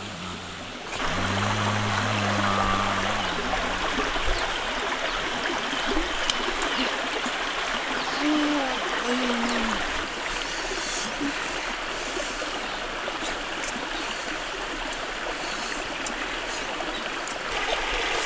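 Steady rush of a flowing stream, with a short, steady low hum lasting about two seconds near the start.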